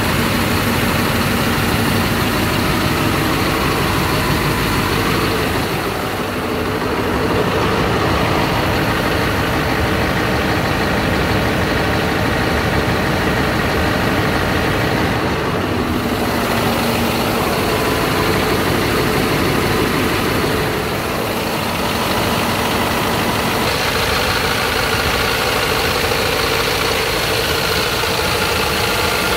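Scania R tipper truck's diesel engine idling steadily.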